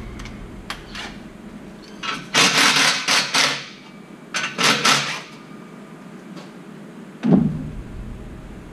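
Work noises on a truck's large-diameter steel cat-back exhaust as its tailpipe clamp is loosened and the pipe swung up. There are two short bursts of metallic scraping and rattling about two and four seconds in, a few light clicks, and a dull knock near the end.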